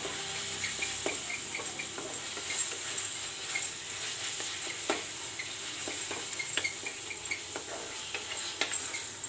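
Thick onion-tomato masala sizzling in oil in a frying pan as a spatula stirs it, fried down until well cooked through. Steady frying hiss with small crackles, and a scrape or knock of the spatula against the pan every second or so.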